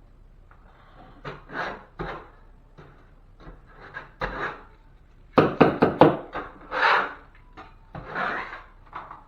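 Self-adhesive fiberglass drywall tape being handled and rubbed down by hand: irregular rubbing swishes, with a quick run of sharp clicks and taps about five and a half seconds in, the loudest part.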